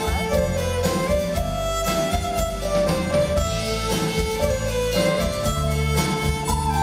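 Electric-amplified violin playing a lively melody over a live band's drums and bass guitar, with a steady beat. The violin line moves in short runs that step downward in pitch.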